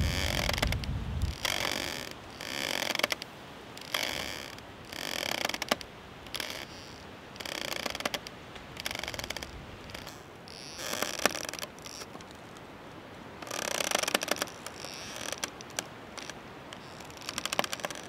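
Footsteps crunching and squeaking in cold, dry snow, roughly one step a second with brief pauses.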